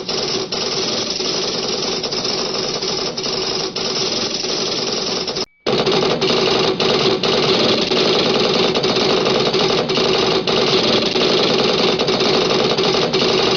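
A Star Trek sound effect of machinery running: a dense, steady mechanical chatter with a fast, even rhythm. It drops out for a moment about five and a half seconds in, then resumes slightly louder.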